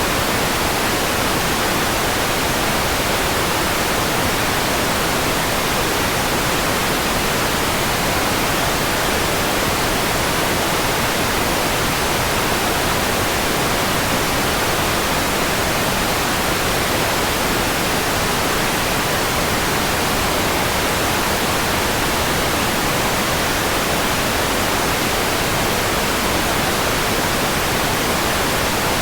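Steady white noise: an even, unchanging hiss spread across all pitches.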